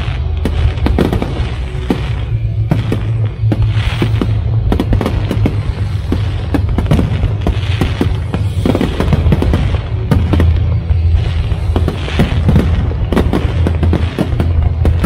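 Fireworks display set to music: a dense, continuous run of shell bursts and crackling reports, many a second, over loud music with a heavy bass.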